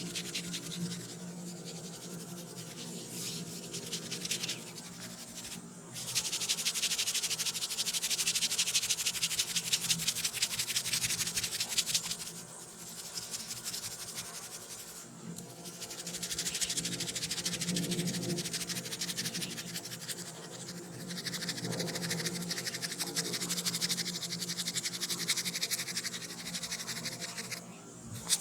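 Close-up rubbing and scratching on hair and scalp in a head massage, in long stretches of dense, rapid scratchy strokes with short pauses between them, over a faint steady low hum.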